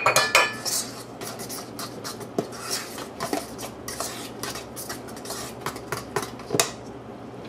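A metal fork stirring cornbread batter in a stainless steel mixing bowl: a sharp ringing clink of metal on the bowl at the very start, then a run of quick scrapes and clinks as the batter is mixed.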